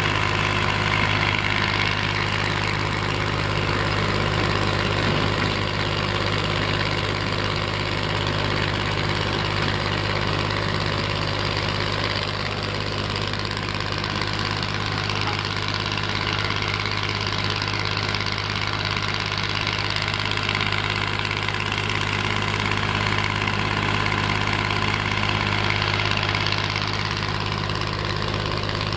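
Heavy diesel machinery running steadily at working speed, its drone holding even throughout.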